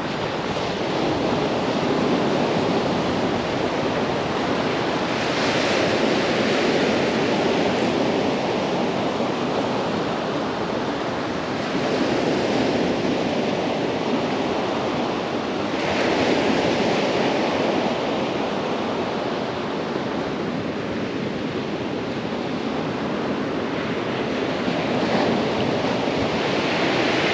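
Sea surf breaking and washing up a sand and shingle beach. It is a steady rush that swells every few seconds as each wave comes in.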